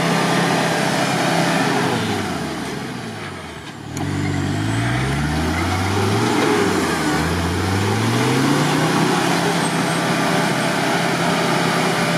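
Off-road vehicle's engine revving hard in repeated surges, its pitch climbing and falling again several times, as it forces through deep swamp mud and cuts itself a rut in the silty bottom. The engine drops off briefly about four seconds in before revving up again.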